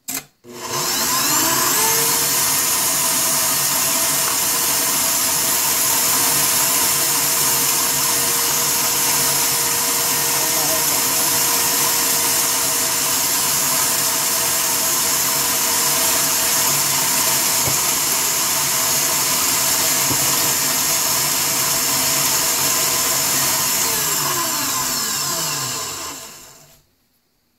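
KitchenAid stand mixer with a wire whisk, set to speed 9, beating egg yolks in its stainless steel bowl. The motor whine and whisk whir start about half a second in and run steadily, then wind down with falling pitch near the end.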